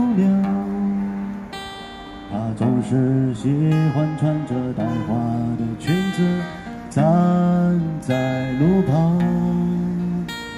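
A street busker singing and strumming an acoustic guitar, his voice carried by a microphone and small speaker. The melody comes in long held notes that slide into pitch, in phrases with short breaks between them.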